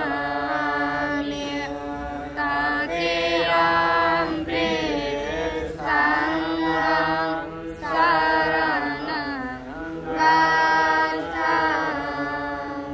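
A voice chanting melodic sung phrases over a steady held drone note, the music fading near the end.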